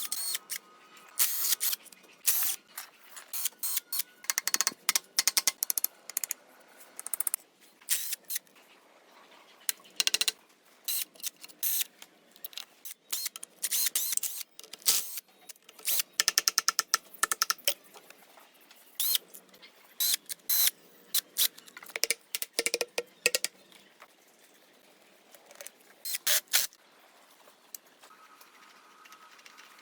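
Irregular runs of short scraping strokes and clicks, some in quick rapid trains, with brief pauses between: hand-tool work on an object.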